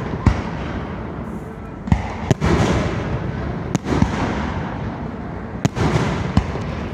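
Aerial fireworks bursting: a string of sharp booms and cracks, about eight in all, over a steady rumble from the barrage.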